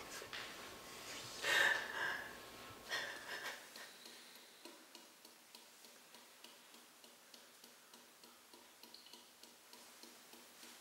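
Wall clock ticking steadily. There is a louder breathy rush about a second and a half in and a smaller one at about three seconds.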